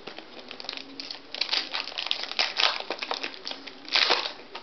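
Trading card pack wrapper crinkling as it is handled and opened, in a run of short rustles. The loudest comes about four seconds in.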